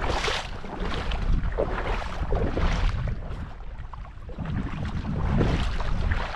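Rushing spring runoff water, with wind buffeting the microphone in gusts that rise and fall.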